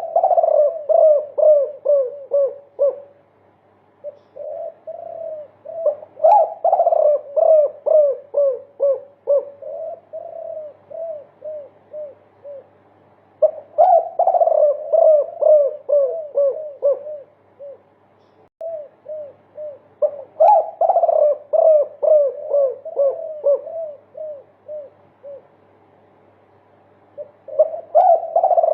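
Spotted dove (derkuku) of the multi-kuk type cooing: long strings of rapid, low 'kuk' notes, about three to four a second, in several bouts with short pauses between them.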